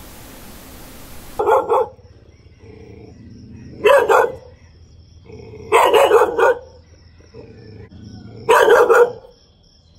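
A dog barking: four loud barks about two seconds apart, the third a quick double bark.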